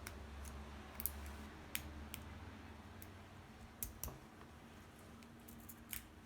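Homemade lock pick and tension wrench working in a cheap padlock's keyway: a few faint, irregular metallic clicks as the pins are raked and set.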